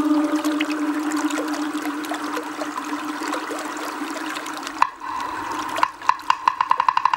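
Animated-film soundtrack: a watery rushing hiss under a held note that fades away. About five seconds in, after a click, it gives way to a rapid, pulsing high trill.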